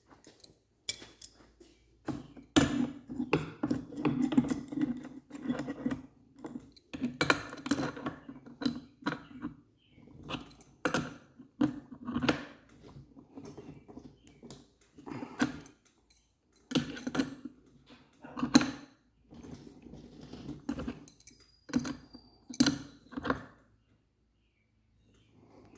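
Adjustable wrenches clinking and scraping against a metal threaded fitting as it is tightened, in irregular short knocks and rubs.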